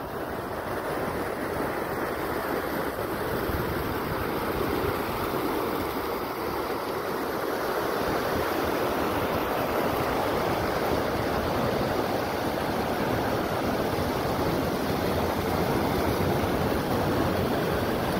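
Steady rush and splash of water pouring from an outlet in a concrete wall into a river, getting a little louder about eight seconds in.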